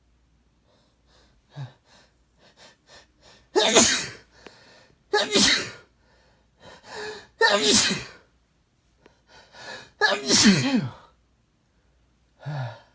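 A man sneezing four times in quick succession. A run of short, catching in-breaths leads up to the first sneeze, and smaller breaths come between the others.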